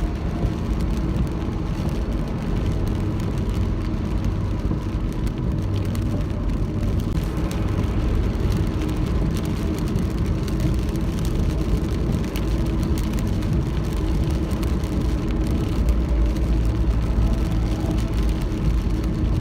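Steady noise of a car driving in heavy rain: engine and tyre rumble with rain on the car.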